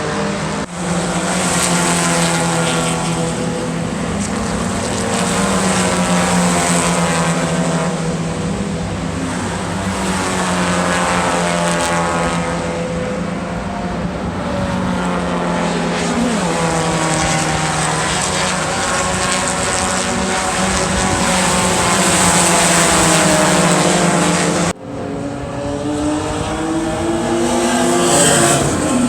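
Race car engines running on a circuit, their pitch rising and falling as cars accelerate, shift and pass, over a steady engine drone. The sound breaks off abruptly about a second in and again near the end.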